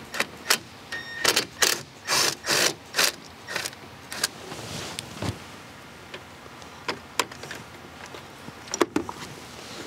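Cordless impact driver on a socket extension, run in a quick series of short bursts to break loose and back out an intake manifold bolt; after that, a few light clicks and knocks as the loosened bolt and tool are handled.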